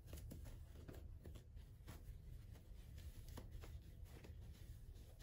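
Near silence with faint, scattered soft rustles of cloth as a sock is stretched over the end of a rolled shirt bundle, over a low steady room hum.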